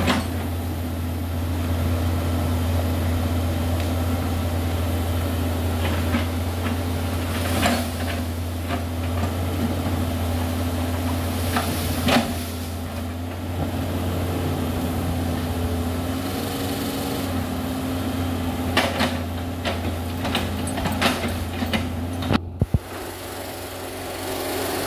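Hydraulic excavator's diesel engine running steadily with a low drone while the machine chips an old oil palm trunk. Sharp cracks and knocks come now and then, a few close together near the end.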